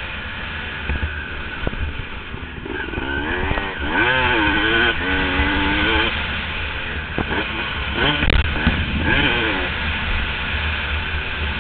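Motocross dirt bike engine under hard riding, its pitch rising and falling again and again as the throttle is opened and closed through the turns and straights. One sharp knock sounds about two-thirds of the way through.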